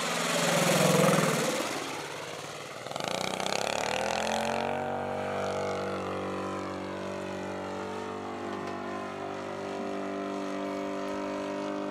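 Roto 35 FS single-cylinder four-stroke petrol engine in a Bellanca model aeroplane passing close by, loudest about a second in, with its pitch dropping as it goes past. A few seconds in the sound changes abruptly to a steady engine note as the plane flies away.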